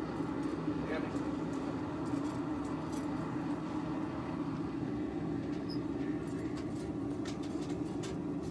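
A forge running with a steady, even roar.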